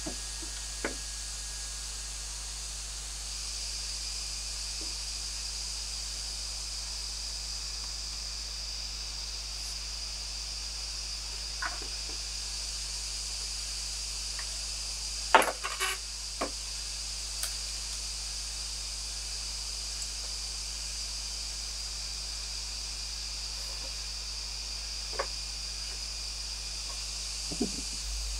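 Steady high-pitched drone of a rainforest insect chorus, with a few scattered sharp knocks of bamboo poles as a man climbs a bamboo frame; the loudest knock comes about halfway, with a couple more soon after it.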